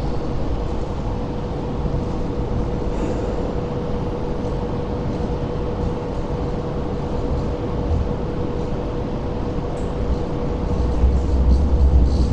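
Inside a Hong Kong Light Rail Phase 5 car: steady running noise with a constant hum, and a low rumble that grows louder near the end.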